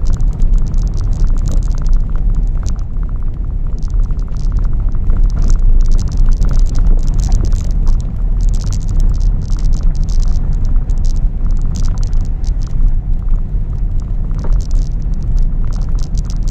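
Cabin noise of a small passenger car driving on a dirt forest track: a loud, steady low rumble from the tyres and engine, with frequent crackling and ticking of gravel under the tyres.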